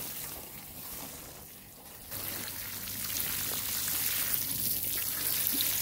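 Water showering from a watering can's rose onto loose garden soil and plant leaves, a steady spatter that gets louder about two seconds in.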